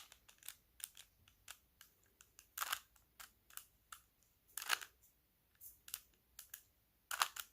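Rubik's cube being twisted by hand: faint, irregular plastic clicks and clacks, with a few louder ones about two and a half seconds in, near five seconds and just before the end.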